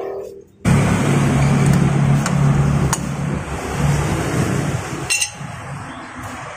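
A motor vehicle engine running steadily with a low hum, cutting in suddenly under a second in. A few light metal clinks come from work on the rear drum brake shoes and springs, the loudest just after five seconds.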